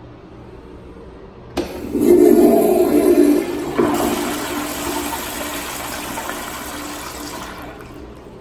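A 2010s American Standard Madera toilet bowl flushing through its flushometer valve: a loud rush of water starts suddenly about one and a half seconds in, peaks over the next two seconds, then tapers off over about four more as the bowl clears.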